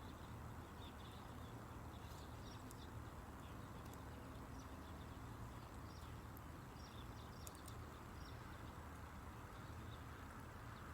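Faint campfire crackling: scattered small ticks and a few sharp pops from burning wood, over a steady low background rumble.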